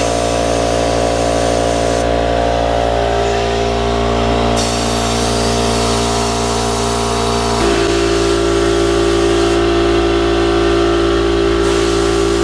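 Compressed air from an air blow gun blasting into a 3-inch pipe to flush out drilling shavings: a loud, steady hiss with whistling, droning tones that jump to a new pitch about halfway through.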